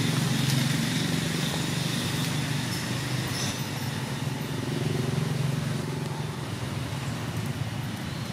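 A motor vehicle's engine running steadily, a constant low hum with a noisy haze above it.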